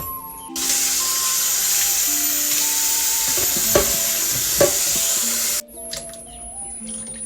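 Plantain pieces frying in hot oil: a loud, steady sizzle with a couple of short pops, starting suddenly about half a second in and cutting off suddenly about five seconds later, over light background music.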